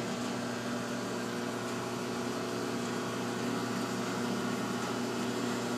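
Wolfking 1250-litre paddle mixer running in reverse mix with its trough empty: a steady mechanical hum from the drive and turning paddle shaft.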